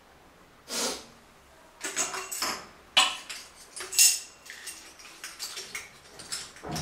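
Chrome flush-valve parts and hand tools clinking and clattering as they are handled and set down on the toilet lid. A first clatter comes about a second in, sharper metal knocks follow around three and four seconds, and lighter rattles come after.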